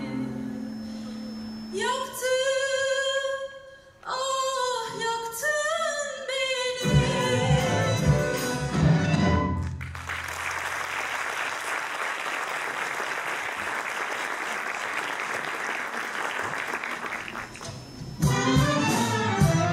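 A singer with a youth orchestra ending a song, the band closing on a final chord, then audience applause for about eight seconds. The orchestra starts the next piece near the end.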